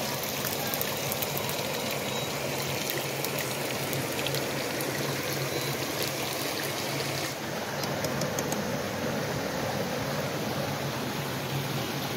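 Mountain stream running over rocks: a steady rush of water.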